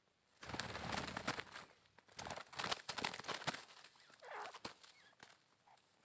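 Irregular rustling and crackling in dry scrub, with a short bird call about four seconds in.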